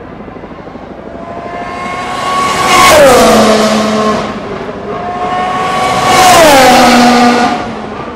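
Two Formula One cars (2015 1.6-litre turbocharged V6 hybrids) passing at speed one after the other. Each engine note holds steady as it approaches, then drops sharply in pitch as it goes by, about three seconds in and again about seven seconds in.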